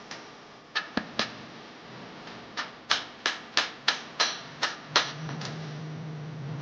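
Sharp light taps: three about a second in, then a quick run of about nine at roughly three a second. A low steady hum comes in about five seconds in.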